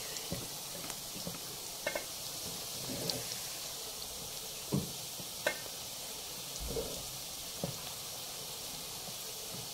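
A spoon stirring cooked jollof rice in a coated metal pot, with a few scattered taps and scrapes of the spoon against the pot over a faint steady hiss.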